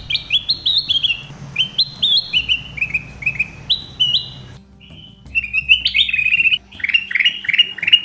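Ruby-throated bulbul singing: a repetitive run of short, high notes that each drop in pitch, given in quick phrases, then after a brief pause about halfway through a faster, more clustered run.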